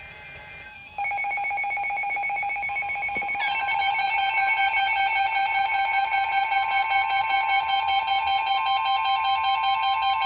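Emergency Alert System attention signal: a loud, harsh electronic alert tone cuts in suddenly about a second in over quiet background music. A second tone joins a couple of seconds later, and the two tones hold steady together.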